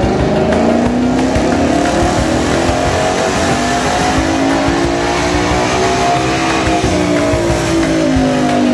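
Ford Mustang engine running hard under load on a chassis dynamometer, its pitch climbing steadily for about six seconds, then falling as the run winds down.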